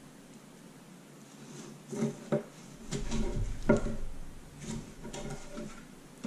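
A chef's knife cutting a melon half on a plastic cutting board. After a quiet start, there are irregular knocks and scrapes from about two seconds in, as the blade saws through the rind and taps the board.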